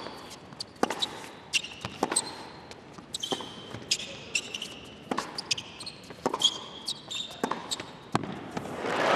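Tennis rally on a hard court: the ball struck by racquets and bouncing, about one or two sharp pops a second, with shoes squeaking between shots. Near the end the crowd breaks into applause as the point is won.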